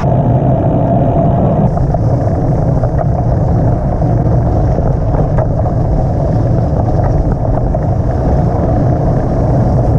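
Steady loud rumble of riding a loaded touring bike along the road: travel noise with no clear pitch, heaviest in the low range.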